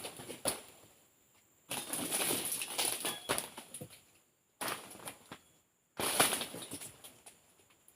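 Oil palm fronds being cut with a pruning chisel: four sudden bursts of crackling and rustling, each fading out within about a second.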